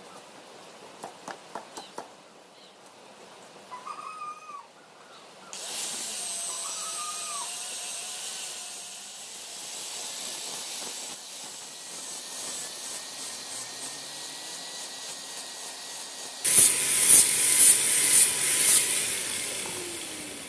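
A small electric power tool running with a steady high whine and hiss after a few clicks and squeaks, then working louder and rougher against the material for a couple of seconds near the end.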